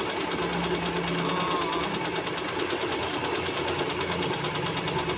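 Jaguar electronic home sewing machine stitching steadily, its needle mechanism pulsing at a fast, even rhythm as it sews an edge stitch along a piece of denim.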